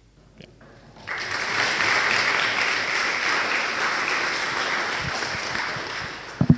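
Audience applauding in a large hall. The clapping breaks out about a second in and slowly dies away, with a short thump near the end.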